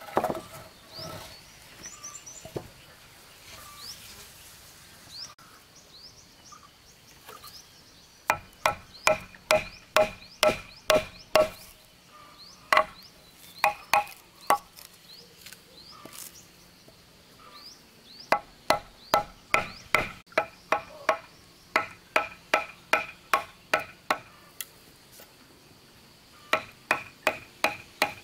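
Hammer driving a steel chisel into a wooden block: runs of sharp, ringing blows, about two or three a second, with short pauses between runs. The first few seconds hold only a few faint taps before the steady chiselling begins.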